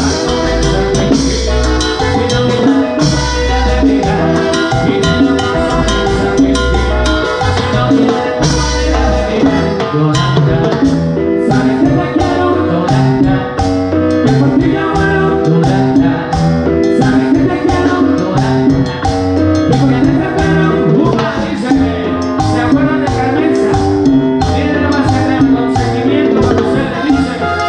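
Live Latin dance band music, led by timbales and cymbal struck close up with sticks over bass, conga and brass.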